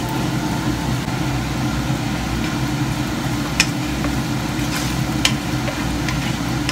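Minced pork sizzling in a nonstick frying pan over a steady low hum, with a few light knocks of a wooden spatula against the pan, about three and a half and five seconds in.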